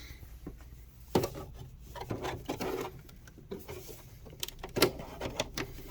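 Scattered sharp clicks and knocks with some rubbing and scraping between them: plastic covers and trim on a mobility scooter being handled and pried off, with the loudest knocks about a second in and near the end.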